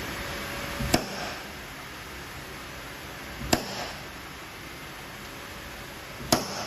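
Three sharp single knocks, about three seconds apart, each ringing briefly: paintless dent repair tools working a dent in a car's steel door panel.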